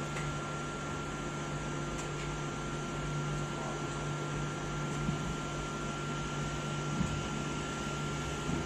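Steady hum of running industrial machinery, with a constant high whine over it and a small knock about seven seconds in.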